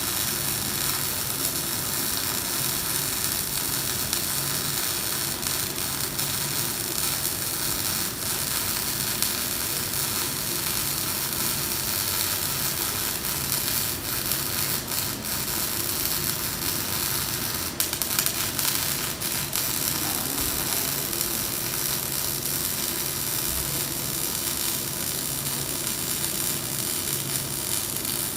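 Electric arc welding: the arc's steady crackling sizzle while a weld bead is laid.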